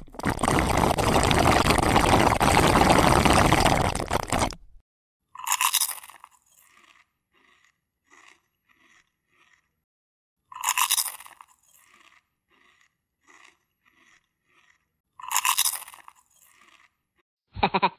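Edited-in sound effects for an orangutan eating a butterfly. A loud, dense crunching noise as of chewing runs for about four and a half seconds. Then three short ringing hits come about five seconds apart, each trailing off in quick fading echoes. A fast pulsing buzz starts just before the end.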